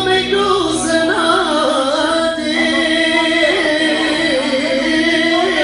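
Music: a wavering, heavily ornamented melody line sung over sustained steady accompanying tones.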